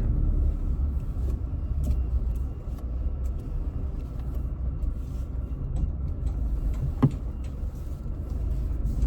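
Car running on the road heard from inside the cabin: a steady low rumble, with a single sharp click about seven seconds in.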